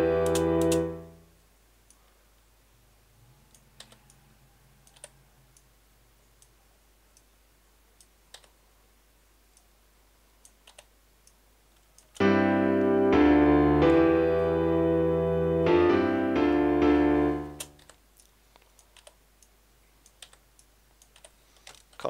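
Software piano in FL Studio playing back a sequence of held chords, which dies away in the first second or two; after a stretch of faint clicking, the chord sequence plays again for about five seconds before stopping, followed by more faint clicks.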